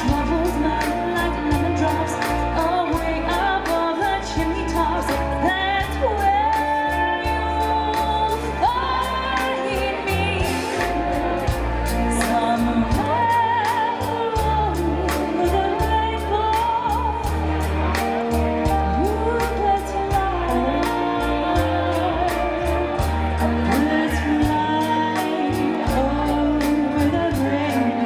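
Live polka band music: piano accordion and electric guitar over bass and a steady drum beat, with singing.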